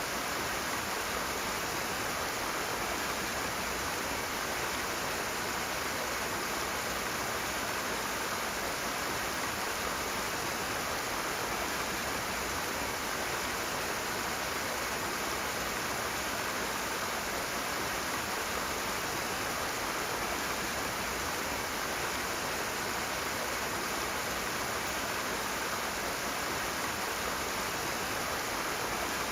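Rushing water, a steady, unbroken rush with no breaks or changes.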